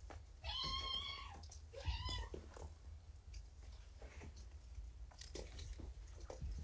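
A young kitten meowing twice: a longer meow about half a second in and a short one about two seconds in. Light knocks and rustles of the kittens moving about follow.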